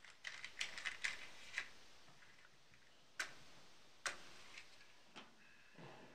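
Small clicks and rattles from handling a matchbox, then two sharp match strikes about a second apart, and a soft whoosh near the end as a gas stove burner is lit with a match.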